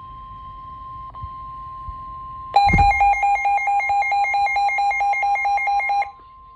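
Emergency weather alert tones announcing a severe thunderstorm warning: a steady high alert tone, joined about two and a half seconds in by a loud, rapid pulsing beep of about seven beeps a second. The beeping cuts off after about three and a half seconds, leaving the steady tone.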